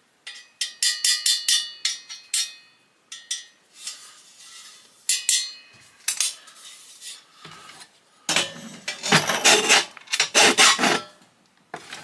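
Metal ceiling-fan parts being worked apart by hand: a quick run of ringing metal clinks about a second in, then scattered scraping and rubbing, with a few loud rough scraping strokes near the end.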